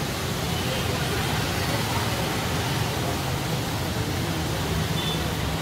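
Steady road traffic on a rain-soaked road: motorbikes and cars passing, with an even hiss of tyres on wet asphalt.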